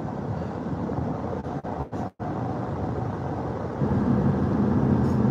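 Car cabin noise while driving: steady road and engine noise. The sound cuts out briefly about two seconds in. About four seconds in, a low engine drone comes up louder and holds.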